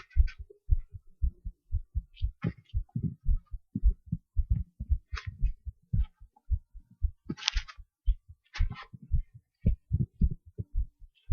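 Recorded human heartbeat: a steady run of low thumps in lub-dub pairs, with several brief scratchy rustles over it.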